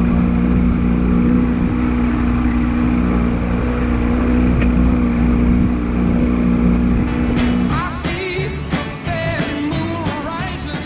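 A small fishing boat's outboard motor running steadily under way, a constant engine note for about eight seconds. It then gives way to music with singing.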